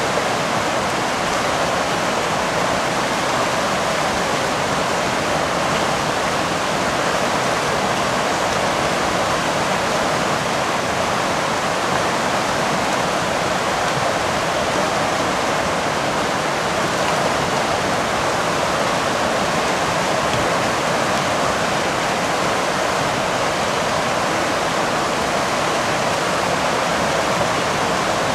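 River whitewater rushing through and below a slatted gate and fence, a loud, even rush of water that never lets up.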